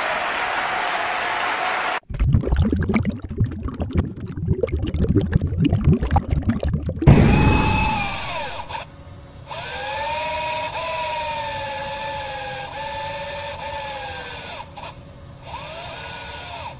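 Mechanical sound effects for an intro animation. After a moment of crowd applause that cuts off sharply, a crackling low rumble runs for about five seconds, then gives way to motor-like electric whines that glide up and down in pitch, stopping and restarting a few times.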